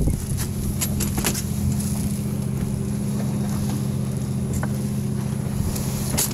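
Steady low hum of a fishing boat's running engine, with scattered light clicks and knocks from a plastic cooler being handled and its lid shut near the end.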